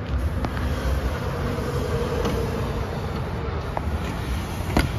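Kobelco ED150 excavator's diesel engine running steadily, with a sharp click a little before the end.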